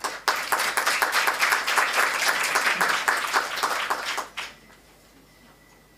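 Audience applauding for about four seconds, then dying away quickly.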